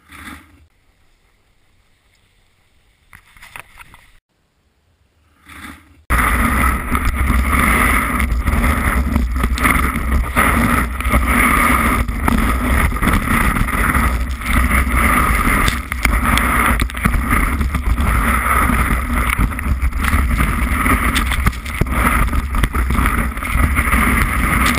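Near quiet with a few faint sounds, then about six seconds in a loud, steady rush starts suddenly: wind buffeting a ski-boot-mounted action camera's microphone and skis running over packed snow during a run.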